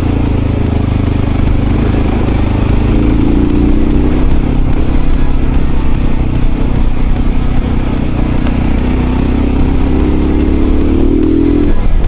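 Mondial RX3i Evo's single-cylinder engine pulling the bike along a dirt road, its revs rising twice, then dropping suddenly near the end as the rider shifts up a gear.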